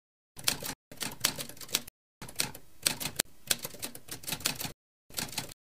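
Typewriter keys clacking in quick runs of strikes, in about four bursts broken by short dead-silent gaps, typing out a title.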